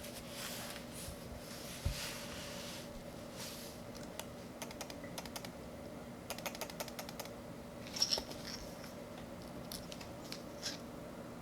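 Plastic clicks and clacks of a Corsair K68 keyboard's Cherry MX Red switches and keycaps, coming in scattered short clusters rather than steady typing, with a scratchy rustle in the first few seconds.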